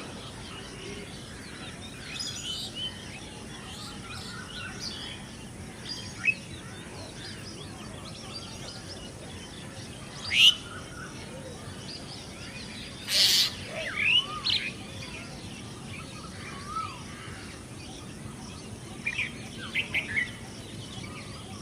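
Wild birds chirping and calling on and off over a steady background hiss. The calls are short, some sharply rising and some falling, and there is a brief noisy burst about halfway through.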